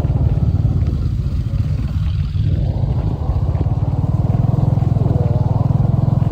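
Motorcycle engine running steadily with a low, rapid pulsing, its middle range dipping briefly about two seconds in.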